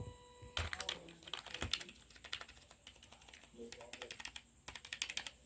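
Old A4tech computer keyboard being typed on: quick runs of key clicks in irregular bursts with short pauses between them.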